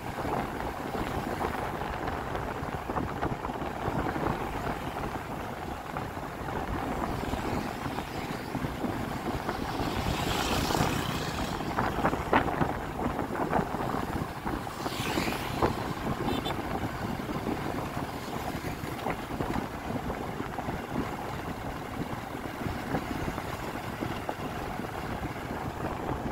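Wind rushing over the microphone and the steady hum of a motorbike being ridden along a road, with two louder swells of passing traffic about ten and fifteen seconds in.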